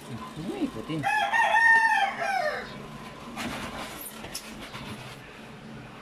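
A rooster crowing once: a single loud, drawn-out call starting about a second in and lasting about a second and a half, rising and then falling in pitch. A few light clicks and a rattle follow.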